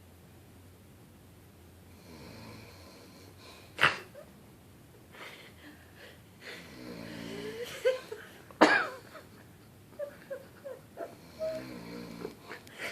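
An elderly woman snoring in her sleep: two long snores, each ending in a loud, sharp snort, about four and nine seconds in, then a run of short, fainter sounds near the end.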